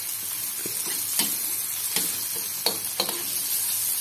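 Chopped aromatics sizzling in hot oil in a wok as they are stir-fried, with a metal spatula scraping and knocking against the wok about four times.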